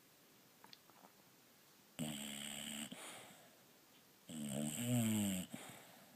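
Sleeping bulldog snoring: two long snores, the first about two seconds in and the second, louder one about four seconds in, falling in pitch towards its end.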